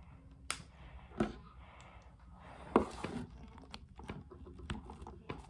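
Plastic articulated action figure's joints clicking as it is moved: a few sharp, separate clicks with softer small clicks and handling rustle between.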